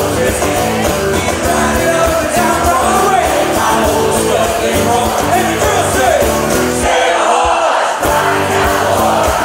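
Live country-rock band playing: a lead vocal over strummed acoustic guitars and drums. About seven seconds in, the low end and drums drop out for about a second, then the full band comes back in.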